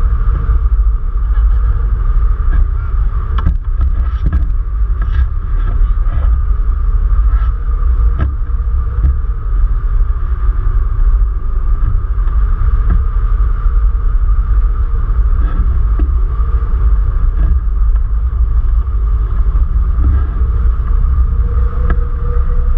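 Loud, steady wind rush and rumble on the microphone of a camera mounted on a hang glider's wing in flight, with a steady high hum running underneath.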